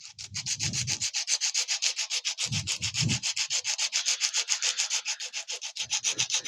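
Sandpaper rubbed by hand back and forth over the plastic of a Honda CT110 fairing in quick, even strokes, about six or seven a second, scuffing the sheen off the surface so the glue will grip.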